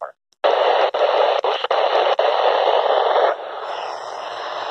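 Static hiss from a Midland weather-alert radio on a weak NOAA Weather Radio channel (162.525 MHz), with no clear broadcast coming through. The sound cuts out completely for about half a second at the start, then the hiss comes back with brief dropouts and turns quieter about three seconds in.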